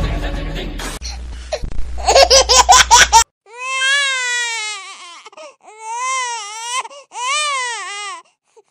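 Exaggerated comic crying: a short burst of rapid laughing about two seconds in, then three long wavering wails that rise and fall in pitch.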